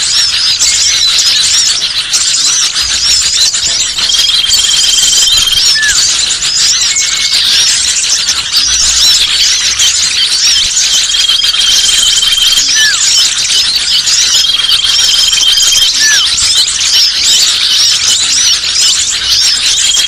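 Bird-lure recording of many small birds chirping and twittering noisily in a dense, unbroken chorus. A long, steady high whistle recurs three times over it, each lasting about a second and a half. It is a lure call meant to draw small birds down from the trees.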